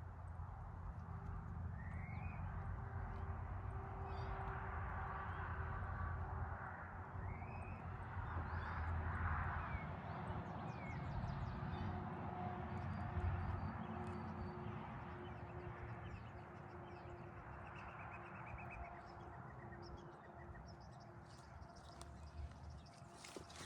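Birds chirping now and then over a steady low rumble and a faint continuous hum.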